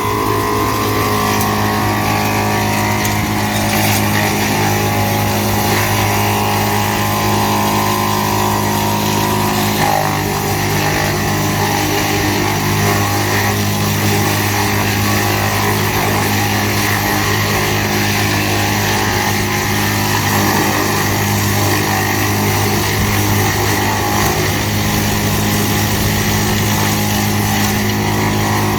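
GL&D M175DS tractor-mounted woodchipper running steadily under load, driven by the tractor, with the dense rushing noise of branches going through it. The sound shifts about ten seconds in.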